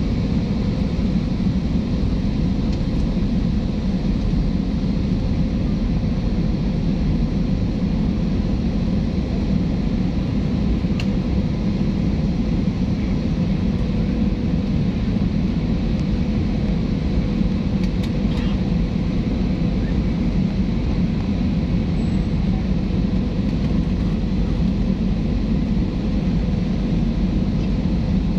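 Steady passenger-aircraft cabin noise in flight: a deep, even rumble of engines and airflow, with a faint steady hum above it.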